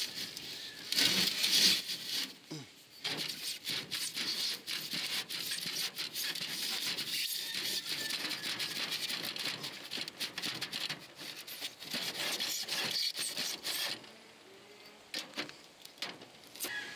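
Hand saw rasping through foam packed inside an aluminum jon boat seat, in rapid scratchy back-and-forth strokes, breaking off about three seconds before the end.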